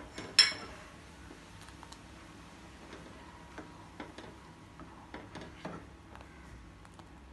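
A ladle clinks once against the side of a steel saucepan, ringing briefly about half a second in, then gives light, scattered ticks and scrapes as it stirs the hot milk.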